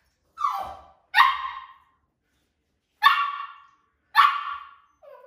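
Maltese puppy barking four times, in two pairs, with a short falling whine near the end.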